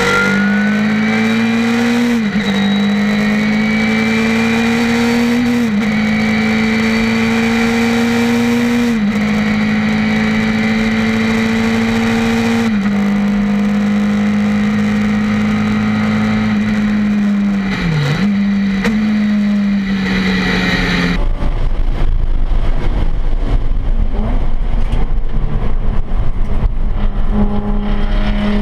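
Race car engine at full throttle inside the cockpit. Its pitch climbs slowly and drops sharply at each upshift, about every three to four seconds, with a brief dip near 18 s. At about 21 s the sound changes abruptly to a rougher mix of engine and road noise from another in-car camera.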